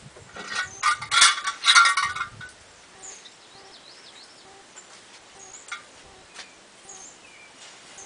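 Carolina wren at a wooden nest box giving a loud, harsh rapid chatter for about two seconds near the start, followed by a few faint high chirps.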